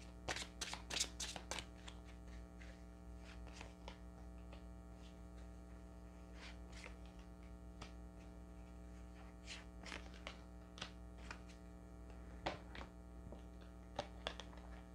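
Tarot cards being drawn from the deck and laid down on a cloth-covered table: light clicks and flicks of card stock in several bunches, over a steady electrical hum.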